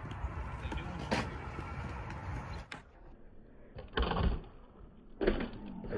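Low rumbling outdoor noise, then a thump about four seconds in and another just past five seconds as the electric mountainboard comes down from a jump off a skatepark ledge.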